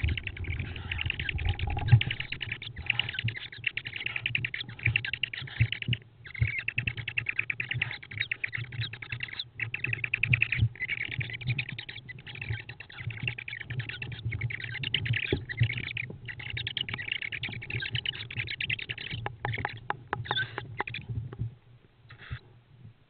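Tawny owl chicks in a nest box giving rasping, wheezy calls while scuffling and scratching on the box floor, with knocks and thumps as they jostle. It stops about a second before the end, leaving only a short scuffle.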